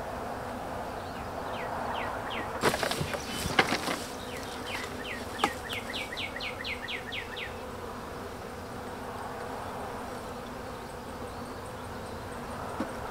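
Steady buzzing of a honey bee colony around an opened nuc and hive. A cluster of sharp knocks and clicks about three seconds in comes from the wooden hive frames being handled.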